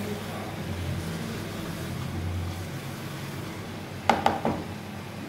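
Wooden spoon stirring and scraping chickpeas as they fry in masala in a non-stick kadai, over a steady low hum. About four seconds in, a quick run of sharp knocks as the spoon strikes the pan.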